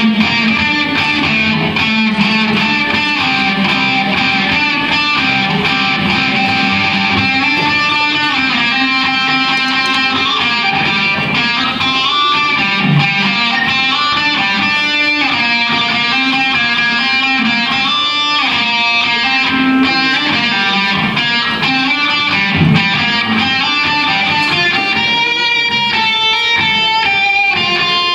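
Electric guitar played through an amplifier: a melodic line of changing notes over chords, with quicker runs of notes near the end.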